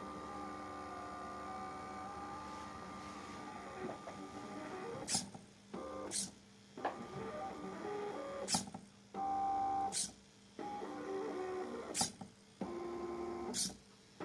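Stepper motors of an AxiDraw-clone CNC pen plotter whining in tones that jump from pitch to pitch as the carriage moves, with short pauses where the motors stop. Six sharp clicks come in the second half, between the moves.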